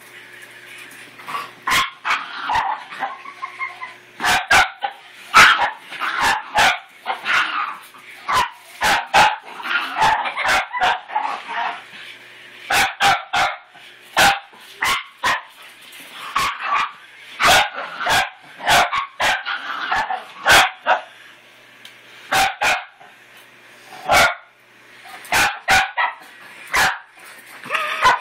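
Miniature pinscher barking over and over in agitation, sharp barks coming irregularly about once or twice a second.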